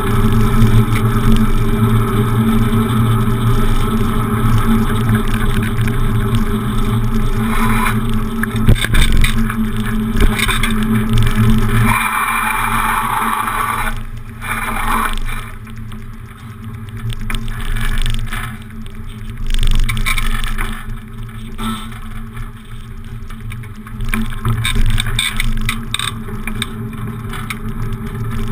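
Wind rushing over a handlebar-mounted camera and the rolling noise of a beach cruiser bicycle being ridden through city traffic. It is loud and steady for the first dozen seconds, with a brief brighter rush about twelve seconds in, then turns quieter and patchier.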